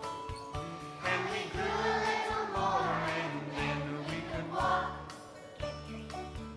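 A group of children singing together over instrumental backing music with a steady pulsing bass. The voices come in about a second in and fade out near the end.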